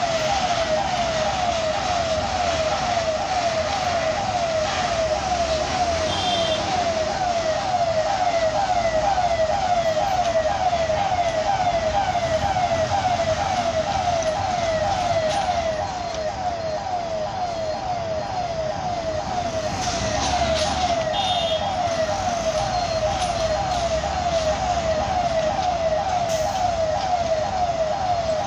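Level crossing warning siren sounding continuously: a pitched electronic wail that sweeps over and over, about four times a second, over the low rumble of heavy trucks and motorbikes crossing. It means a train is due and the gate should be closing.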